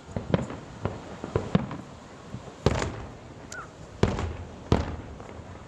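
Fireworks exploding: a run of smaller sharp pops in the first couple of seconds, then three loud bangs in the second half, each trailing off in a short echo.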